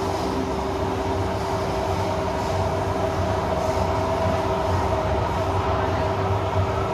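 Singapore MRT train running steadily, heard from inside the carriage: a low rumble with a steady motor whine.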